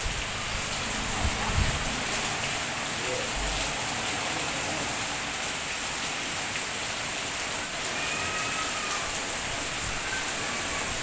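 Heavy rain pouring down steadily, a constant even hiss of downpour.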